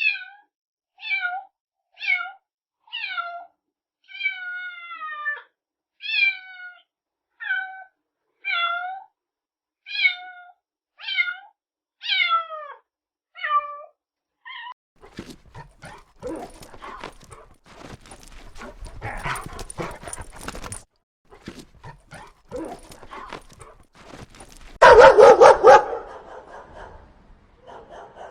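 A cat meowing over and over, short falling calls about once a second, one of them longer. Then a dog panting and snuffling, with one loud bark-like burst near the end.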